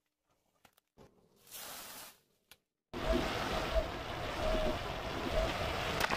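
After about three seconds of near silence, a car rolling slowly with its engine running comes in suddenly as a steady, noisy rumble. Near the end a sharp pop as a water-filled balloon bursts under the tyre.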